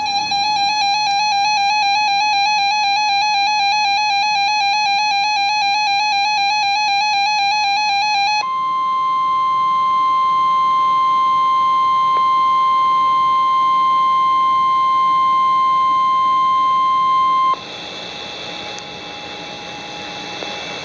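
NOAA Weather Radio Emergency Alert System tones. For about eight seconds there is a buzzy, rapidly warbling data screech: the SAME digital header that encodes the alert. Then comes the steady 1050 Hz warning alarm tone, held for about nine seconds and cut off abruptly, followed by radio hiss before the flash flood warning is read.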